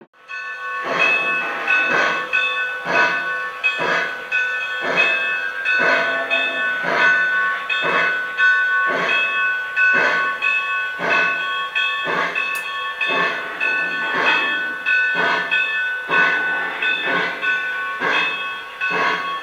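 Lionel model steam locomotive's onboard sound system giving slow, regular steam chuffs, about one a second, as the engine moves along at low speed.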